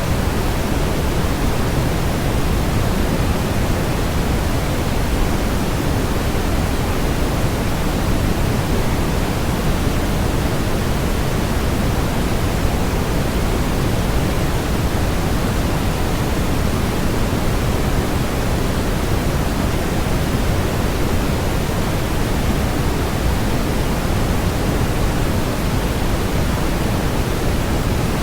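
Continuous generated white noise, a steady hiss that never changes, with more weight in the bass than in the treble, like pink noise.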